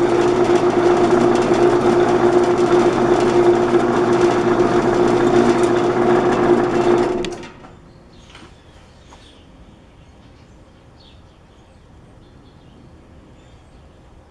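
Dayton metal-cutting band saw running steadily with a strong hum, then switched off about seven seconds in and falling quiet within half a second. This is a test run after the lower wheel was pulled out about 1/8 inch to correct the blade's tracking, which had been running off and throwing the blade.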